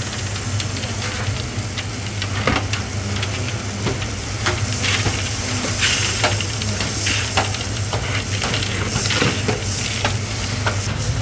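Workshop machinery running with a steady low hum under a constant hiss, with scattered irregular clicks and taps.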